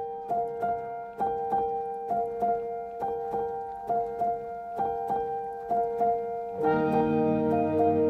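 Background music: a regular, repeating run of notes over a held tone, with fuller, lower chords joining about two-thirds of the way through.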